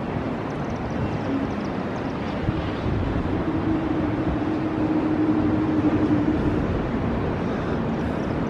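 Wind rushing over the microphone with the hum of distant traffic. In the middle, a distant engine drones at one steady pitch for about four seconds.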